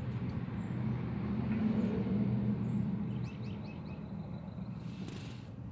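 Low rumble of a passing vehicle, swelling and then fading away, with a few short bird chirps about three seconds in.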